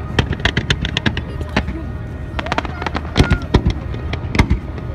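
Fireworks going off in a rapid series of sharp bangs and crackling pops, some in quick clusters of several a second, with the loudest reports about three seconds in and near the end.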